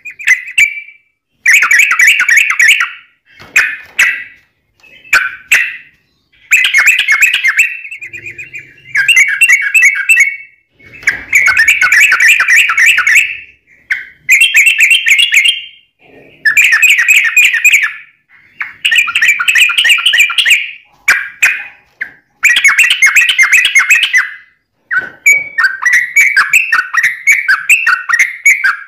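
Sooty-headed bulbul (trucuk) singing its long, rapid rolling song in phrases of about one to two seconds, with short pauses between them. Near the end the phrases run together into nearly unbroken chatter.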